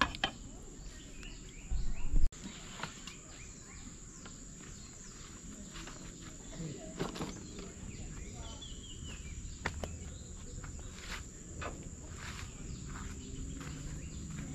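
Insects chirring in a steady high-pitched drone, with scattered light clicks and knocks and a brief low bump about two seconds in.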